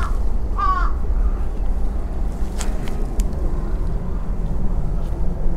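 One short animal call about half a second in, over a steady low rumble, with a couple of faint clicks later on.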